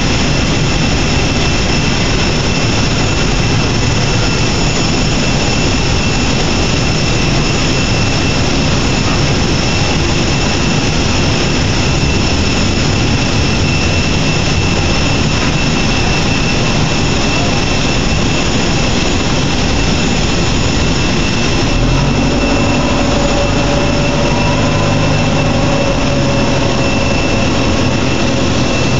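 Loud, steady jet whine on the airport ramp with two high, piercing steady tones over a dense roar. About 22 seconds in, a deeper engine drone joins with a slowly rising tone.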